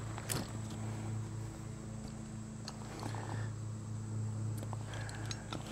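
A few short clicks and soft rustles of a backpack and its strap clips being handled as it is taken off, over a steady low hum.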